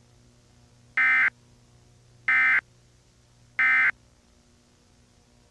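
Emergency Alert System end-of-message data tones: three short, buzzy bursts about 1.3 seconds apart, marking the end of the alert broadcast.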